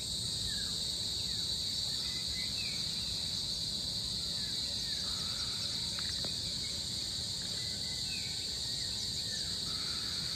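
Steady high-pitched insect chorus, with a few short bird chirps scattered through it.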